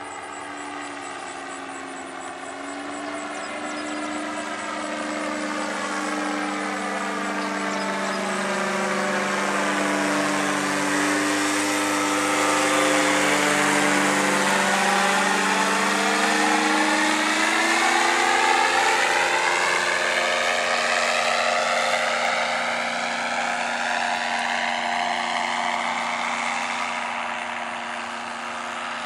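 Powered paraglider trike's engine and propeller droning as it passes low overhead, growing louder to a peak about halfway through and then fading. A sweeping, phasing tone comes in as it passes, and the pitch drops slightly as it moves away.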